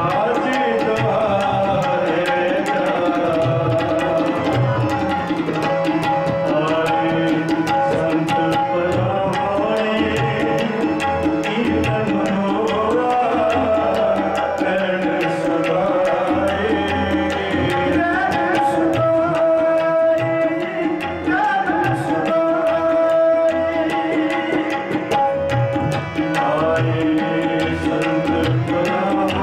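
Sikh kirtan: tabla playing a steady rhythm under held harmonium notes, with singing at times.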